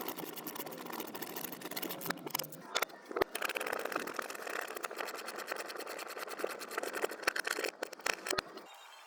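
Rapid mechanical clattering and clicking with a motor-like whirr, from power-tool work fitting the cross brace to the bed frame with metal brackets and bolts. The sound changes abruptly near the end.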